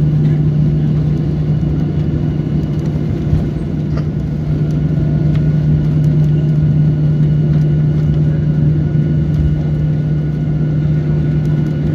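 Airliner cabin noise during the landing roll: the jet engines and the rolling on the runway make a loud, steady drone with a constant low hum.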